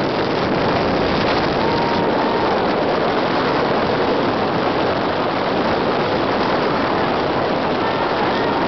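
Steady rush of wind and ice noise from a DN class iceboat sailing fast across lake ice, the runners hissing over the ice and wind buffeting the microphone. A faint brief whistle rises out of it about two seconds in.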